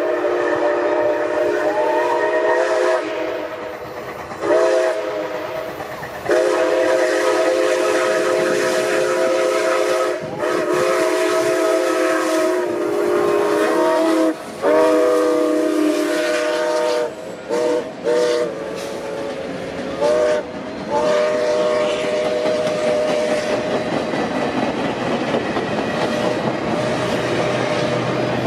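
Canadian Pacific 2816, a Hudson steam locomotive, blowing its chime steam whistle in a series of long and short blasts as it approaches and passes. Near the end the passenger cars roll by with steady wheel and rail noise and clickety-clack.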